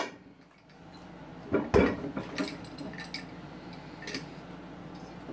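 Metal clanks and clicks from a loaded Rolling Thunder grip handle being handled: two sharp knocks about a second and a half in, then a few lighter clicks.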